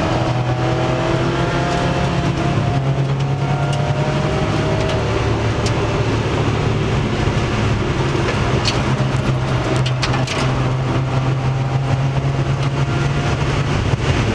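Mazda Miata race car's four-cylinder engine running hard, heard from inside the stripped, caged cabin. Its note climbs slowly over the first few seconds, then holds steady. A few sharp clicks come about nine to ten seconds in.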